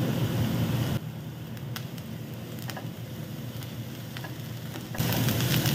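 Chopped onion, green chilli and ginger-garlic paste sizzling in hot oil in a nonstick wok, stirred with a silicone spatula that gives a few faint scrapes. The sizzle drops quieter about a second in and comes back louder near the end.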